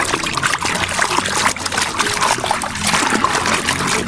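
Water trickling and splashing in irregular little splashes as a muddy toy vehicle is washed by hand in clean water.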